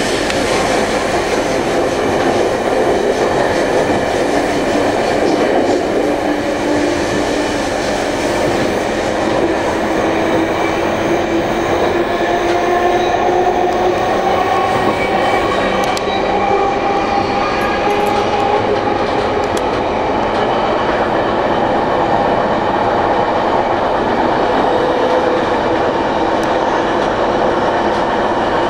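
Electric passenger train running along the track: a steady rumble of wheels on rails with occasional clicks over joints. About twelve seconds in, a faint high tone comes in, rises a little and fades again some seconds later.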